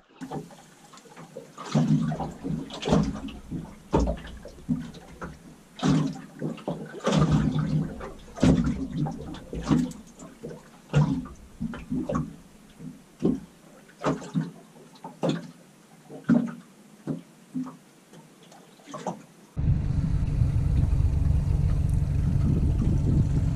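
Small waves slapping irregularly against the aluminium hull of a small fishing boat, a splash-like burst every second or so. About twenty seconds in this cuts suddenly to a steady, louder rushing noise of the boat under way.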